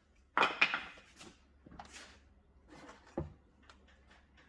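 Items being rummaged through and moved in a car trunk: a loud scrape or clatter about half a second in, softer rustling, and a dull thump about three seconds in.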